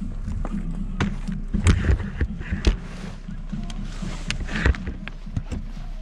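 Snow brush knocking and scraping snow off a car: a run of sharp knocks, heaviest about two seconds in and again near five seconds, over a radio playing music.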